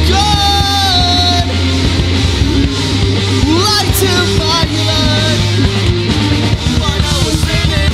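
Rock band playing live, taken straight from the mixing desk: electric guitars, bass guitar and drums in an instrumental stretch, with a melodic line that slides and bends in pitch.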